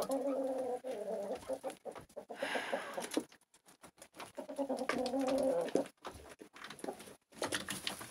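Domestic poultry clucking in low, pulsing calls, in two bouts: one at the start and another about five seconds in. A brief rustle comes near three seconds, and a few sharp knocks near the end.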